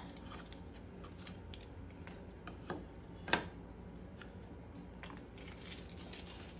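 Thin laser-cut wood pieces being handled on a wooden board: light scraping and rustling, with two sharp clicks a little under three seconds in and just over three seconds in as pieces knock together.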